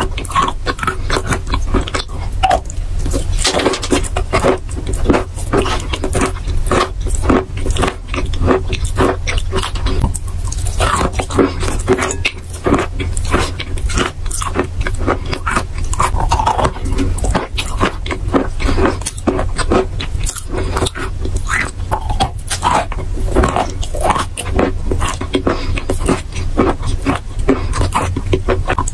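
Chalk being chewed: a dense, irregular run of crunches and wet, pasty mouth sounds as the chalk is ground to paste, over a steady low hum.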